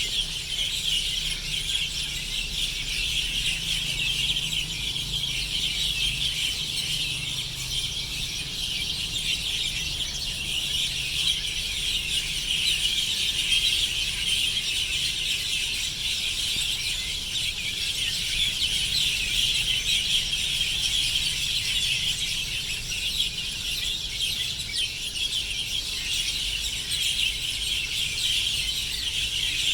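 A flock of sparrows chirping together at roost in the evening, a dense, unbroken chorus of many overlapping high chirps.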